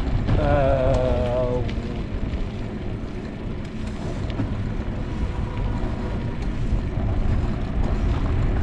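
Wind rumbling on the microphone and road noise while riding a bicycle, with a short wavering pitched sound about half a second in.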